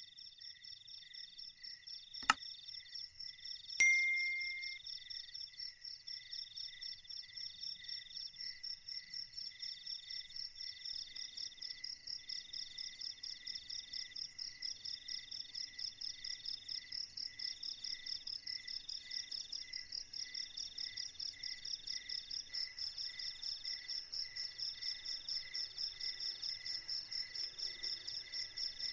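Night insects, crickets, chirping steadily in several overlapping rhythms: a fast high trill under slower pulsed chirps. A sharp click sounds about two seconds in, and a louder knock with a brief ringing tone follows a couple of seconds later.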